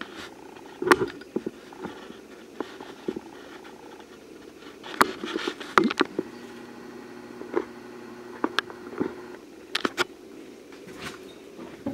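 Honeybees humming inside an indoor observation hive, a steady low buzz. Scattered sharp clicks and knocks sound over it.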